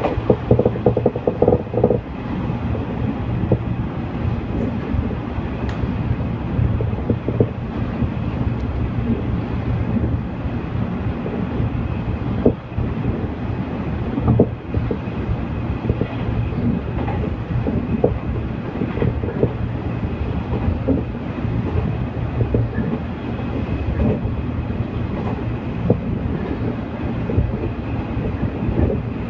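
Local electric train running along the line, heard from inside the passenger car: a steady rumble of wheels on rails, with scattered sharp clacks over the rail joints.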